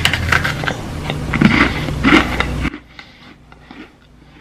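Close-up crunching and chewing as a bite is taken from an apple pie Oreo sandwich cookie, loud and crackly for about two and a half seconds, then dropping to faint chewing.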